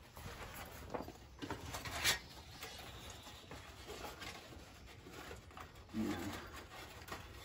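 Cloth zip bag rustling as a flat-folded stainless-steel camp stove is slid into it, with a few light knocks of the metal, the sharpest about two seconds in.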